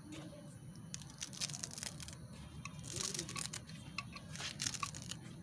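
Knife slicing through a hand-held bunch of fresh coriander, with no cutting board: short crisp crunching cuts that come in a few quick clusters.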